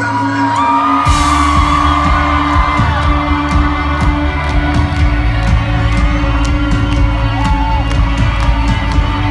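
Live rock band playing in a hall, with a held sung note over sustained chords; about a second in the drums and bass come in and the full band carries on with a steady beat, with whoops from the voices over it.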